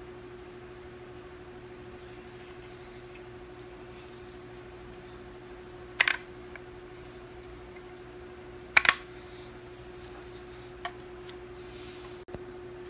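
Hands handling a plastic camera battery charger and battery over a cardboard box: two sharp clicks or knocks, one about six seconds in and one about nine seconds in, then a lighter tick, over a faint steady hum.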